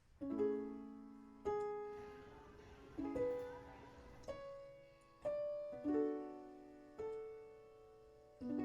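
Solo piano music: a slow, gentle melody of single notes and soft chords, each struck about every second and a half and left to ring and fade.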